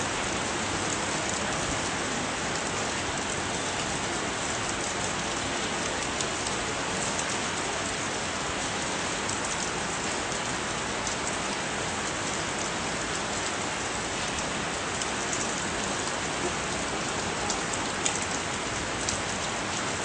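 Heavy rain falling steadily, an even hiss of rain on water and concrete. There are a couple of faint taps near the end.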